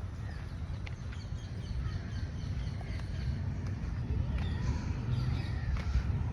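Birds chirping and calling in many short notes, over a steady low rumble.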